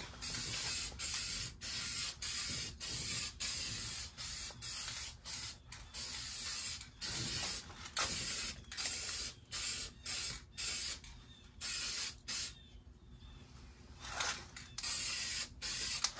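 Aerosol can of gloss black spray paint hissing out in many short bursts, each under a second long, with a short pause about thirteen seconds in.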